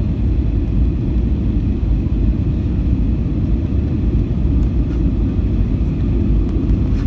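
Jet airliner cabin noise during landing: a steady low rumble of engines and airflow, with a faint steady whine above it.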